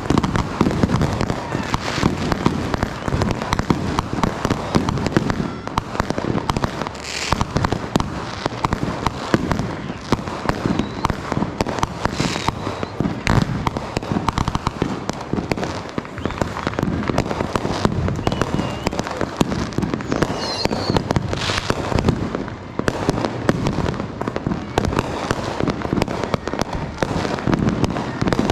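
Many fireworks and firecrackers going off together in a dense, unbroken crackle of pops and bangs.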